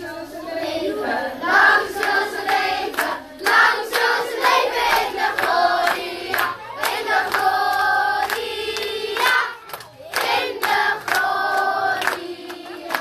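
A group of children singing a song together, with hand clapping along.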